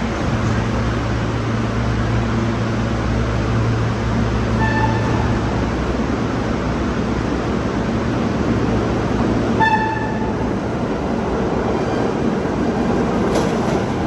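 Subway train running along the track with a steady rumble and low hum, sounding two short horn toots, one about five seconds in and one near ten seconds in.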